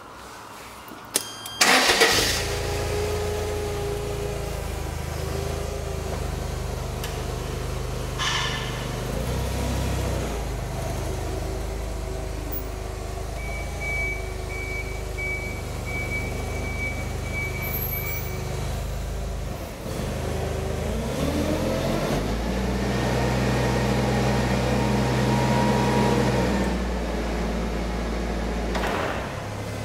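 Toyota 7FGF15 forklift's LPG/petrol engine started about two seconds in, then running steadily as the truck moves. In the middle a string of short high beeps sounds for about five seconds. Near the end the engine note rises and holds louder while the hydraulics lift a pallet up the mast.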